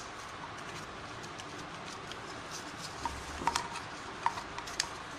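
A cloth rubbing and wiping inside the plastic housing of a cooler's submersible water pump. A handful of light clicks and taps as the pump body is handled, near the end.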